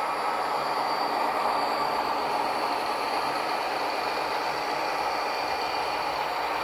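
HO scale model train running past, with several diesel locomotives working together at the head of a long freight train: a steady, even running sound with no breaks.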